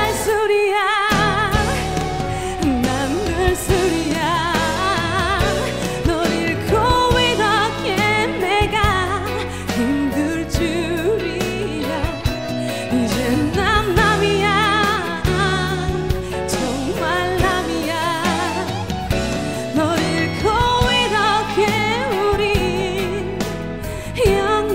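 A woman singing a Korean pop ballad live with strong vibrato over instrumental accompaniment.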